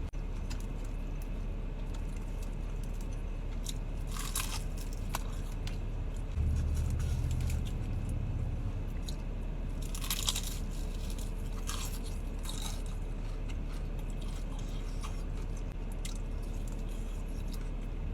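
Crunching bites and chewing of crispy Church's fried chicken, with separate crunches about four seconds in and several more around ten to thirteen seconds in. A low rumble runs for about two seconds in the middle.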